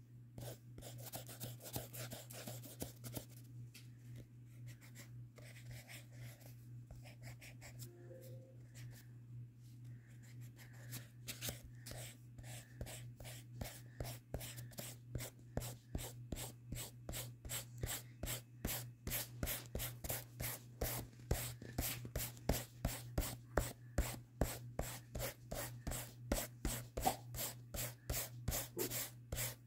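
Pencil-top rubber eraser rubbing back and forth on sketchbook paper, erasing pencil lines. The strokes come unevenly at first, then settle into a steadier, louder scrubbing of about three strokes a second.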